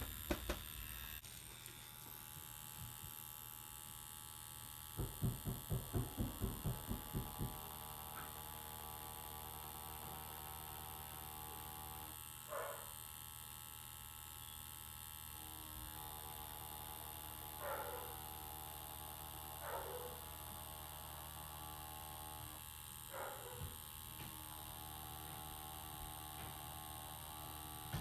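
Tattoo machine with a 3-round liner needle humming steadily while lining. About five seconds in there is a quick run of about ten low thumps, and a few short sounds come later.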